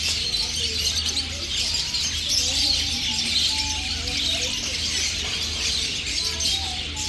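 Many small caged birds chirping at once in a dense, continuous chorus.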